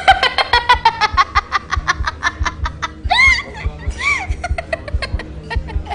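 A young girl's high-pitched fit of laughter: a fast run of short staccato 'ha-ha' bursts, then two rising-and-falling squeals about three and four seconds in.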